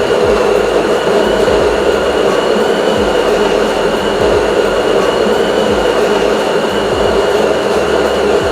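GETRA CLT-Q006 coffee machine running its cleaning cycle: a loud, steady mechanical hum with a thin high whine on top.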